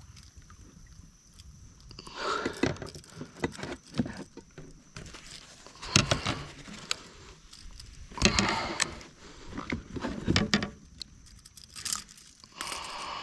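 Unhooking a bass in a plastic kayak: irregular knocks and bumps against the hull, with metal clinks from the lure's hooks and a pair of pliers.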